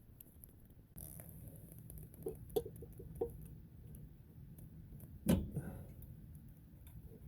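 Light clicks and knocks of hand tools and metal parts being handled: a quick run of small clicks, then one louder knock about five seconds in, over a low steady hum.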